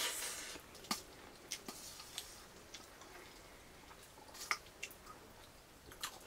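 Metal spoons tapping and scraping on steel plates during a meal of rice and curry, a handful of light, scattered clicks. A brief hiss at the very start.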